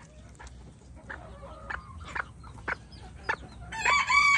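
Bantam chickens making short, soft clucks and chirps, then near the end a louder, longer call as a rooster starts to crow.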